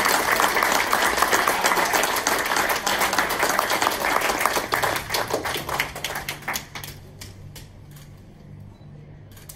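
Audience applauding, a dense round of clapping that dies down about six or seven seconds in to a few scattered claps.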